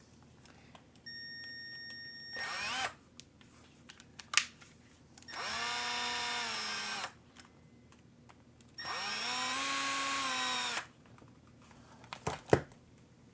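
Power drill running in three short bursts, each spinning up and winding down in pitch; the first is fainter, the last two last about two seconds each. A couple of sharp clicks fall between and after the bursts.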